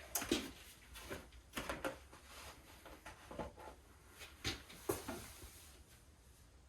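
Scattered light knocks and clicks of metal parts and clamps being handled and set in place, about ten of them over the first five seconds, then dying away.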